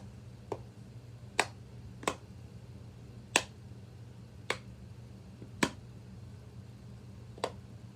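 Bubbles of a silicone pop-it fidget being pushed through one at a time, about seven sharp pops at irregular spacing, roughly a second apart.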